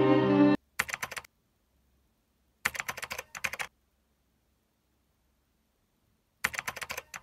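String music cuts off about half a second in, followed by three short bursts of rapid keyboard typing clicks with dead silence between them.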